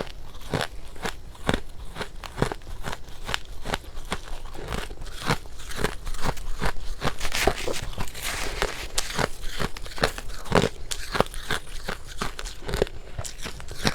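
Freezer frost ('snow ice') bitten and chewed close to the microphone: a steady run of sharp crunches and crackles, several a second, packed more densely for a few seconds in the middle.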